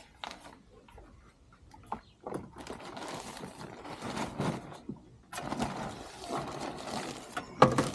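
Plastic bags of bagged garden soil and compost being handled and opened: crinkling and rustling plastic in two stretches, with a sharp snap near the end.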